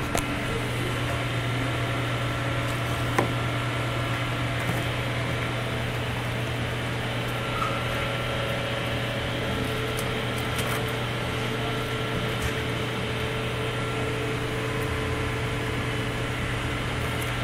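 Steady low mechanical hum of room machinery, with a few faint knocks of a knife against a plastic cutting board, the clearest about three seconds in.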